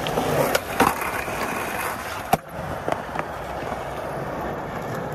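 Skateboard wheels rolling over smooth concrete with a steady rumble, broken by a few sharp clacks of the board, the loudest about two and a half seconds in.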